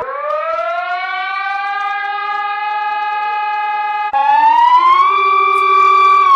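Emergency alert alarm siren: a tone with many overtones glides up and holds steady. About four seconds in it jumps louder and climbs again to a higher, held pitch.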